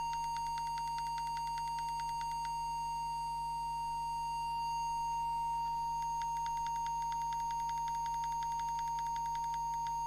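Steady single test tone from an audio oscillator, modulating a CB transmitter while its FM deviation is set in the service menu. A fast, faint ticking sits under it for the first couple of seconds and again from about six seconds in.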